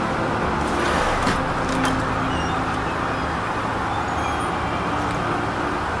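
Steady city street din of traffic, with a few brief clicks about a second or two in.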